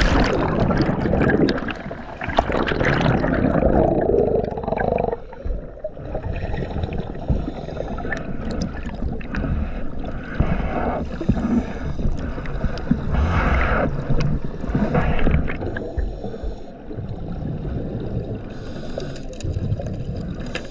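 Heard underwater, a diver's entry plunge churns the water with a loud rush of bubbles for about five seconds. Then come gurgling bursts of scuba exhaust bubbles every couple of seconds.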